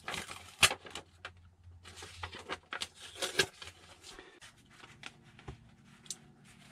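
Hands handling paper templates and foam wing pieces on a cutting board: rustling, sliding and light knocks, busiest in the first three and a half seconds. Then come a few quieter clicks over a faint steady hum.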